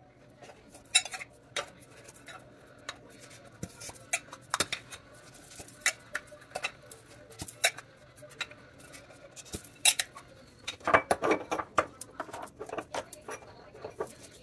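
Small metal candle tins and glass candle jars being handled on a countertop, their lids pulled off and the containers set down: a run of light clicks, taps and clatters, with a quick flurry of them about eleven seconds in.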